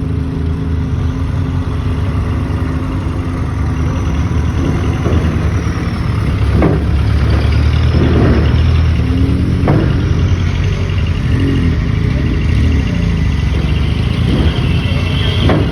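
Truck engine running and pulling, growing louder a few seconds in, with a few sharp knocks and clatters over it.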